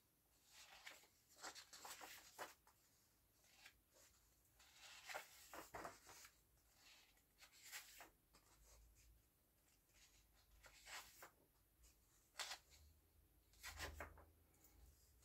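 Faint rustling of paper pages of a colouring book being turned and brushed flat by hand, in repeated brief swishes.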